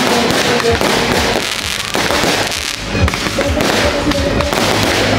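An aerial fireworks display going off overhead: a dense, continuous string of bangs and pops from many shells bursting at once.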